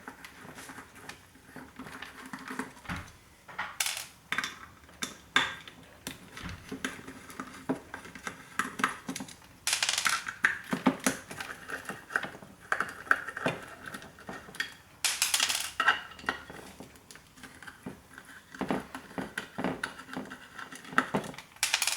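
Irregular metallic clicks, clinks and short scrapes of hand tools working on the metal parts of an old hard drive while the bottom motor is being taken out.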